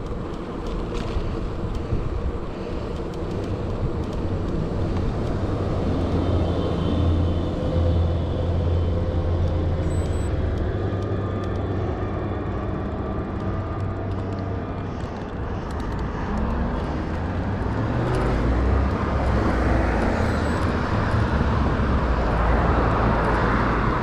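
Steady road and traffic noise heard while riding an e-bike along a city street, with cars running nearby and faint tones that slowly rise and fall; the noise grows louder over the last few seconds.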